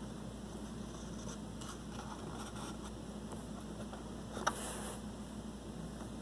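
Faint light scratching of a deer mouse's feet moving on fabric and wood, over a steady hiss, with one sharp click and a brief rustle about four and a half seconds in.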